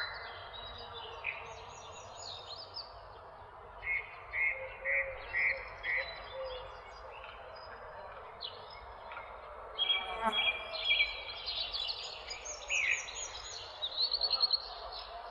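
Several songbirds chirping and singing over a steady background hiss, with a run of four short, evenly spaced notes about four seconds in and a busier tangle of chirps and trills in the second half.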